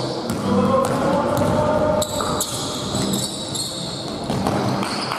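Basketball game on an indoor court: the ball bouncing with repeated knocks, short high sneaker squeaks and players' voices calling out.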